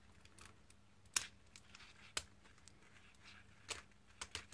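Plastic quadruped-robot leg parts and servo wires being handled and clipped together: a few faint clicks and rustles, the sharpest about a second in, with others around two seconds and near four.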